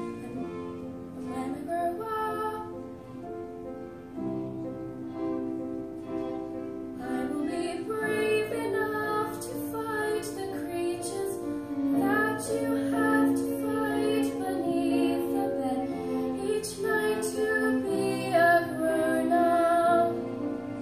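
A group of schoolgirls singing a musical-theatre song with instrumental accompaniment, heard from the back of a large hall. The voices grow fuller and louder about eight seconds in.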